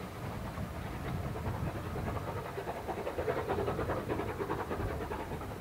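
Southern Railway rebuilt West Country Pacific steam locomotive 34028 'Eddystone' working a train away into the distance, its exhaust beating in a fast, even chuff that swells about three seconds in.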